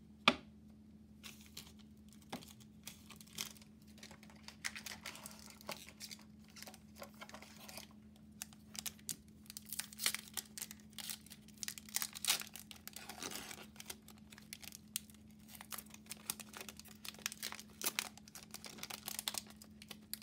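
Foil wrapper of a Magic: The Gathering collector booster pack being handled, crinkled and torn open, with a run of sharp crackles. One louder sharp tap comes just after the start.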